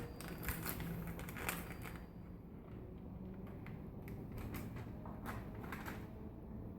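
Scattered light clicks and taps of a measuring spoon and spice container being handled while spices are measured out, over a faint low hum.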